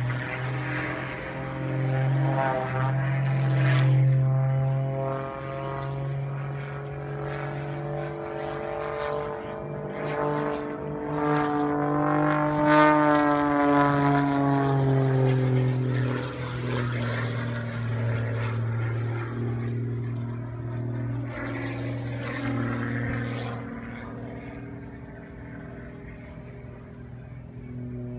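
Single-engine propeller aerobatic plane flying a display, its engine and propeller note rising in pitch and loudness to a peak about halfway through, then falling away.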